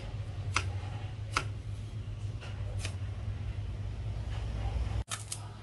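Kitchen knife slicing fresh ginger into matchsticks on a wooden cutting board: separate sharp knocks as the blade meets the board, two clear ones in the first second and a half, fainter ones after, and a quick pair near the end, over a steady low hum.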